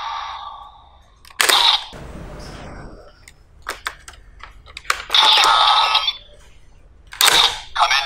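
DiEnd Driver toy gun being operated: sharp plastic clicks as the slide is worked and a rider card is inserted, electronic sound effects from the toy, and near the end its electronic voice calling "Kamen Ride".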